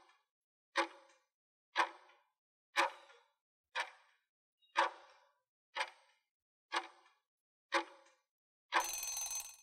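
Countdown-timer sound effect: a clock-like tick about once a second, followed near the end by a longer ringing tone that lasts under a second as the count runs out.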